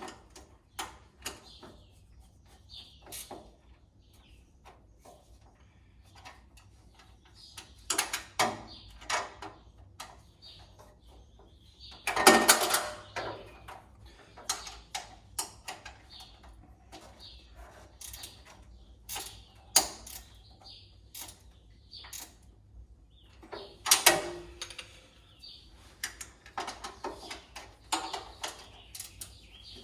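Irregular metallic clicks, knocks and clunks of hand tools, bolts and a caster wheel being handled while a tool cart's casters are unbolted and swapped, with two heavier clunks about twelve seconds in and again near twenty-four seconds.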